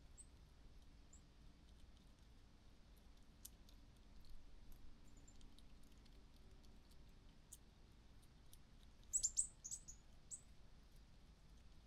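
Near silence with scattered faint clicks, broken about nine seconds in by a quick run of five or six short, high, thin chirps from a small bird, then one more a moment later.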